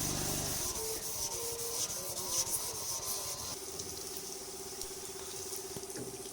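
Hand sanding: steady scratchy rubbing of an abrasive on a surface, in continuous strokes.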